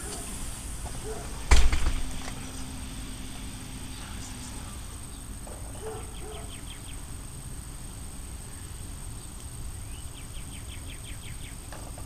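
Outdoor background noise with one sharp thump about a second and a half in, followed by a brief low hum. Later come two short, rapid trills of a small bird.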